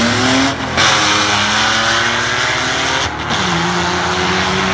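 Car engine at full throttle on a drag strip, its pitch climbing. It drops out briefly about half a second in and again a little after three seconds, then carries on at a lower, steadier pitch, like gear changes during a pass.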